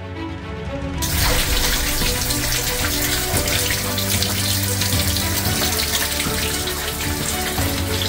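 Water rushing from the open drain valve of a 50-gallon electric water heater and splashing onto a concrete floor as the tank is drained to flush out sediment. The rush comes in suddenly about a second in and stays steady, with background music playing throughout.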